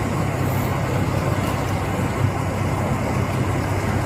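Steady low rumble of a car engine idling, with faint road-noise hiss over it.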